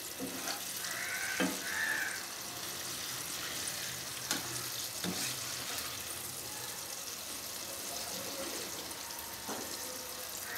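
Pakoras deep-frying in hot oil in a kadai, a steady sizzle, while a perforated slotted spoon turns them over so the other side cooks, with a few light knocks of the spoon against the pan.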